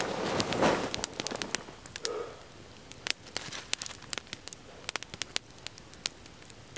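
Campfire crackling with many sharp snaps and pops. A plastic zip-top bag of wood chips rustles in the first second and a half.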